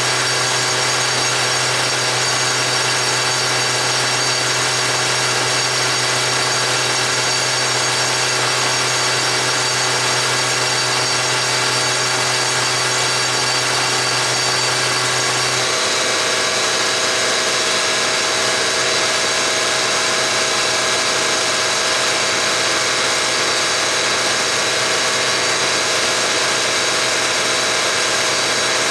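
A Bacharach diesel injection test stand running a Bosch VE rotary injection pump, a steady mechanical whine and hiss of the drive and the injectors spraying into the test cylinders. About halfway through, a low hum drops out and the tones shift slightly.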